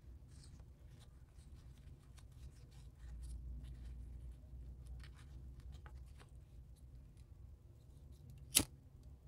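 Faint rustling and small clicks of satin ribbon being handled and folded by hand, over a low steady hum. One sharp click near the end.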